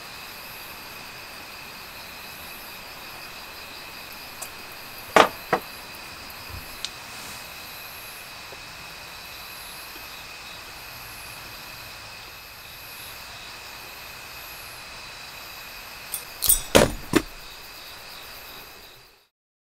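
Steady chirring chorus of insects, with two sharp knocks about five seconds in and a quick run of knocks near the end, after which the sound fades out.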